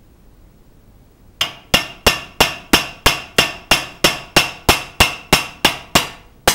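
Hammer blows on metal: a steady run of about three sharp strikes a second, each with a short metallic ring. They begin about a second and a half in and break off briefly near the end.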